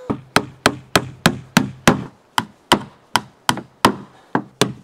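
A hammer driving nails into wooden strips on a wooden door: sharp, evenly spaced strikes, about three a second.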